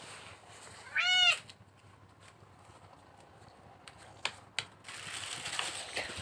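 A ginger domestic cat meows once, a short call that rises and falls in pitch, about a second in. Two light clicks and a soft rustle follow near the end.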